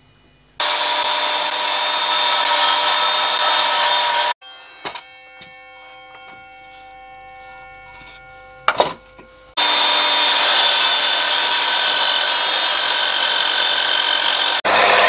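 Evolution sliding mitre saw cutting through a hard, dry, glued oak board: two loud cuts of about four and five seconds, with a quieter gap and a single knock between them.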